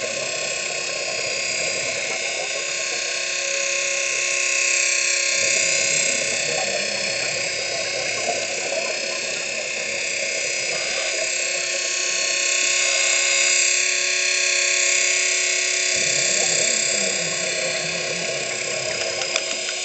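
Core-drilling rig machinery running steadily, with a whine of several held tones over a dense hiss.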